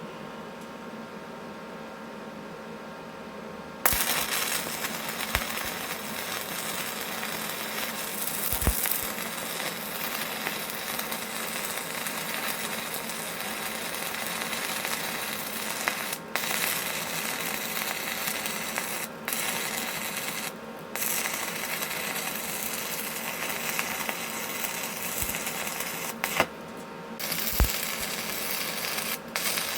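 Stick welding arc from a 3/32-inch 6011 rod at 75 amps, striking about four seconds in and then crackling steadily, with a few short breaks where the arc drops out.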